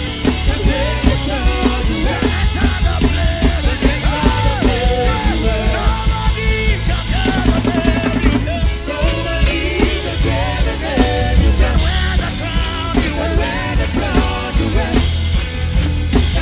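Drum kit played hard in a fast, busy groove with cymbals, inside loud live band music with a steady low bass and melodic lines over it.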